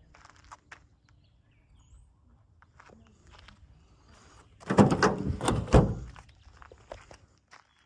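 Pickup tailgate being unlatched and lowered, a loud run of clanks and rattles lasting about a second, a little under five seconds in. Before it, faint footsteps on gravel.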